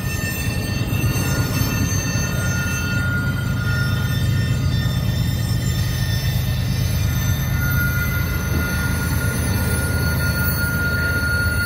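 Train rolling through a sharp curve: a steady low rumble with thin, high wheel squeals held for seconds at a time, one squeal strongest in the last few seconds.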